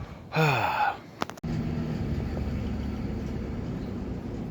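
A brief falling pitched sound and a couple of clicks, then after an abrupt cut a vehicle engine running steadily.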